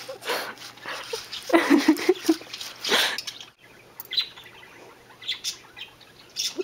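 Guinea pig giving short squeaky chirps, mixed with scuffing and knocking close to the microphone.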